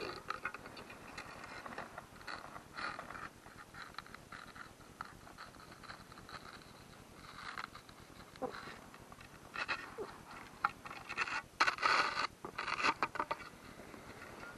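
Irregular scraping and crunching of ice and slush at an ice-fishing hole as a pole is worked down into it, with scattered clicks. The scrapes come thicker and louder near the end.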